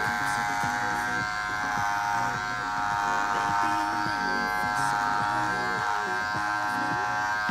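Electric hair clippers running steadily, cutting through long hair.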